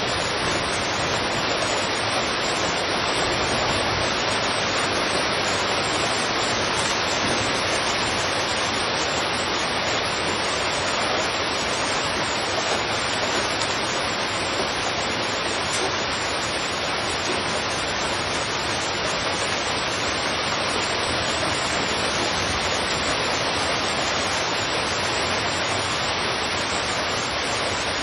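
Heavy rain falling steadily on a street: a dense, even hiss with no separate drops, thunder or other events standing out.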